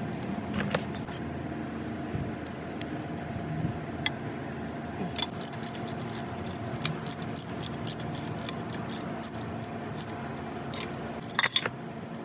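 Small metal pieces clinking and rattling, with many sharp clicks through the middle and a louder cluster of clinks near the end, over a steady low hum.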